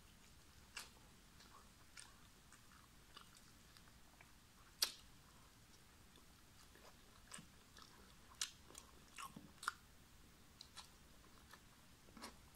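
Close-miked mouth sounds of someone eating roast chicken with rice by hand: soft chewing with scattered short wet clicks and smacks, the loudest about five seconds in and a cluster of them later on.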